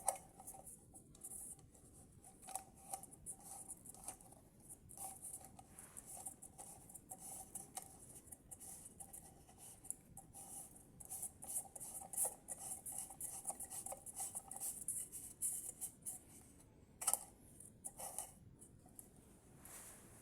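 Small irregular clicks, scrapes and rustles of hands handling and working on parts of an LED lamp close up. A faint steady tone runs underneath until about three-quarters of the way through.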